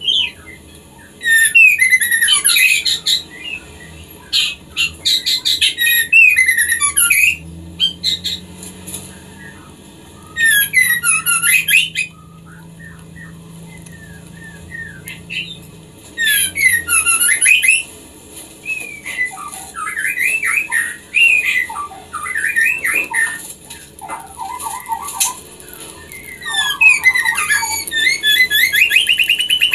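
Female white-rumped shama (murai batu) in breeding condition calling to a male: fast runs of rising and falling whistled and chattering notes. They come in bursts of a few seconds with short pauses between, and run almost without a break over the last third.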